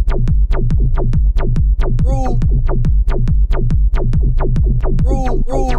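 Electronic dance music with a fast, steady drum-machine beat and heavy bass, with brief pitched vocal chops.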